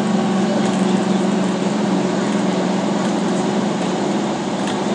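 Steady drone inside an airport apron bus: its engine and running noise, with a constant low hum.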